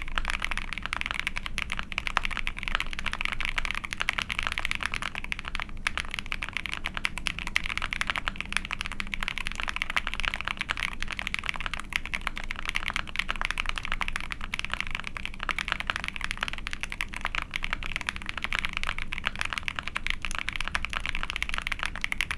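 Continuous fast typing on a mechanical keyboard: an Ai03 Vega with a POM plate, lubed linear switches (Ice Candy, all-PC housing with a long nylon stem) and GMK keycaps. It makes a dense, unbroken stream of keystroke clacks.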